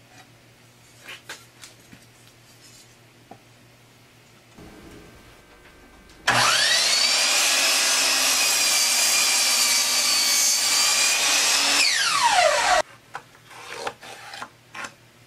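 An electric power tool's motor spins up with a rising whine about six seconds in, runs steadily for about five seconds, then winds down with a falling whine and cuts off. Light taps and clicks of marking tools on the wooden stool top come before and after.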